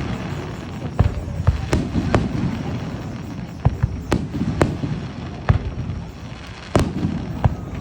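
Aerial fireworks shells bursting: about ten sharp bangs at uneven intervals, the loudest near the end, with a low rumble between them.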